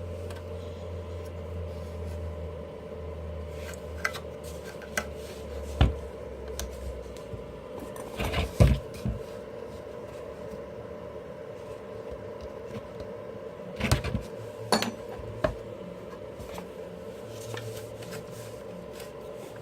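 Hand tools clinking and knocking against the plastic housing of an electric blower while screws are being worked out, a scatter of sharp clicks with a louder cluster about eight seconds in and again near fourteen seconds, over a steady low hum.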